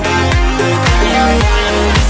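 Electronic-style backing music with a steady kick-drum beat, about two strikes a second, over a deep bass line, with no singing.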